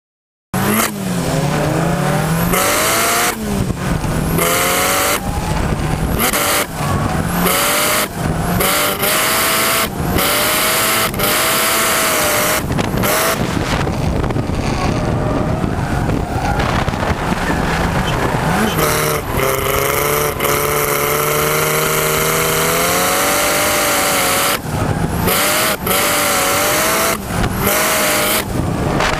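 Drift car's engine running hard and loud, its pitch climbing and falling over and over with many brief sharp breaks in the sound, over a constant noise of tyres and wind as the car slides around the track.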